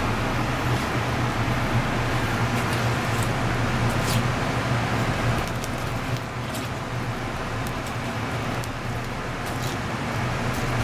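Steady background hum with an even rushing noise, like traffic or machinery running, with a few faint light ticks scattered through it.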